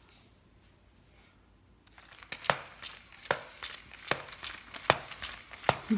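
Small Lego robot car starting up about two seconds in, its motor and wheels running over a foam play mat with a sharp click repeating a little more often than once a second.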